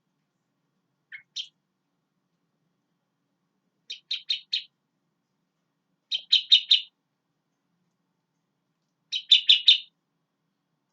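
Sooty-headed bulbul (kutilang) singing: a brief two-note call about a second in, then three phrases of four or five quick notes each, a couple of seconds apart, the last ones loudest.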